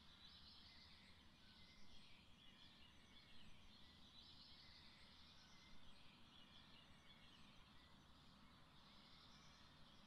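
Faint woodland dawn-chorus-style bird song: several songbirds chirping and trilling at a distance, with a few slightly louder phrases, over a low steady background rumble.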